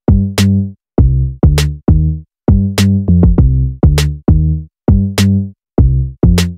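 Electronic background music with a drum-machine beat: short bass notes broken by brief gaps, and a sharp hit about every second.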